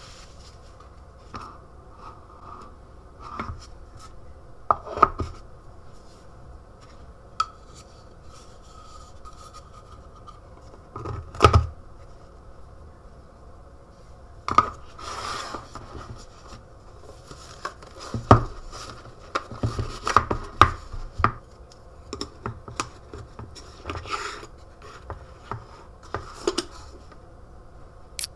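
Wooden bento boxes handled on a stone countertop: lids set on and the two tiers stacked, with many short knocks of wood on stone, one heavier thump near the middle, and rubbing and scraping between. Underneath runs a faint steady hum.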